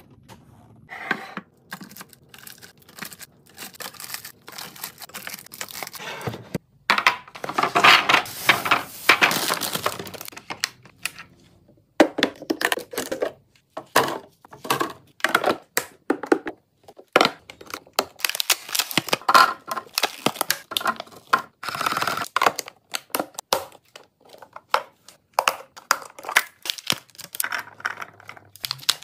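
Packaging being handled and unpacked: crinkling and tearing, loudest for a few seconds about a third of the way in. After an abrupt change it becomes a run of sharp, irregular taps and clicks as fruit pieces and blueberries drop into clear plastic storage bins.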